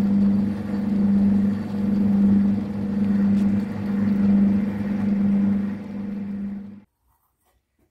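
Boxford lathe running under power while screwcutting, a steady motor hum and gear drone that swells and fades in a regular rhythm. It stops abruptly near the end, leaving only a few faint clinks.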